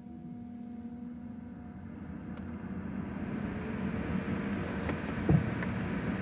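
Cabin of a BMW M135i with the ignition on and the engine not yet running: a steady electric hum at first, then a rushing noise that grows louder, and a single thump about five seconds in.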